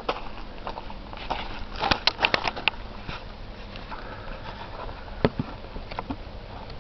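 Sharp mechanical clicks and knocks from handling a Walther Lever .177 CO2 air rifle: a quick run of about six clicks a couple of seconds in, and a single click later.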